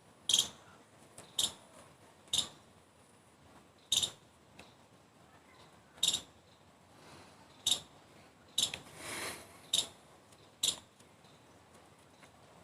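A string of short, sharp, high-pitched clicks, about nine of them at uneven intervals of one to two seconds, with a brief rustle near the end.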